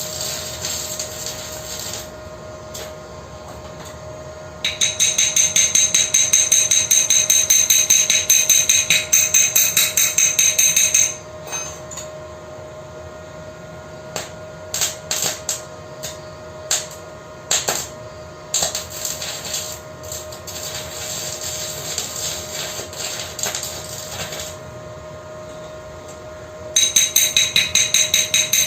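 Rapid hammer blows on metal, several a second with a bright metallic ringing, in two bouts: from about five seconds in to about eleven, and again near the end. In between come scattered sharp knocks and a quieter crackling stretch, over a steady hum.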